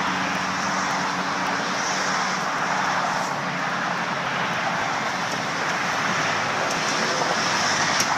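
Steady rushing noise of freeway traffic.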